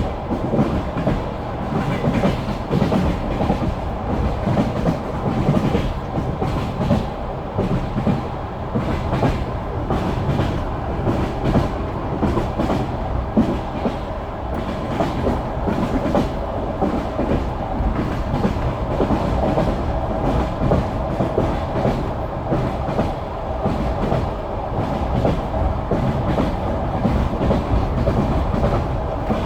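Wheels of a moving passenger train clattering over the rail joints, heard from inside the carriage over a steady rumble.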